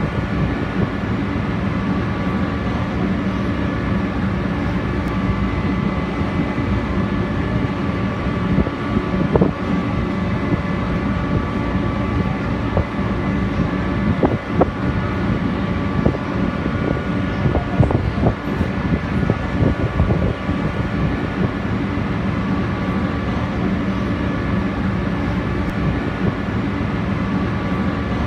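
Passenger ferry's engines running with a steady drone, heard on board, with a few higher steady whines above the rumble.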